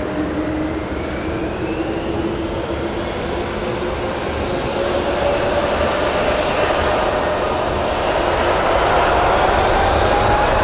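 Jet engines of a Boeing 777-300 airliner running, a steady rush with whining tones, one rising slowly in pitch as the sound grows louder toward the end.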